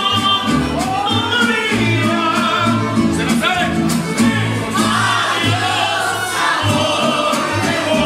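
Live mariachi band playing: guitarrón bass notes and strummed guitars under a man's singing voice.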